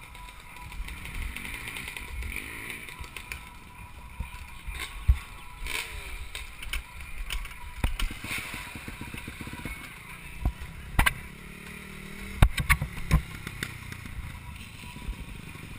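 Low rumble and sharp knocks and clatter close to a helmet camera, over dirt bike engines revving in the background.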